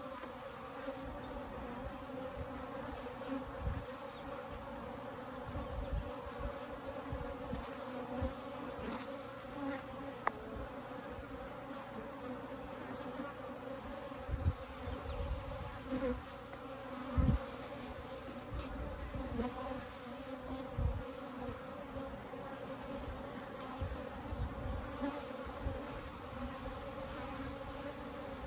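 A large colony of Africanized hybrid honeybees buzzing around their opened hive: a dense, steady drone, with a few short low thumps.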